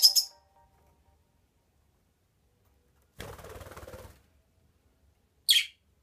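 Small pet parrots (budgerigars and a rosy-faced lovebird): a short high chirp at the start, about a second of rapid wing flapping a little past the middle, and another short, sharp chirp near the end.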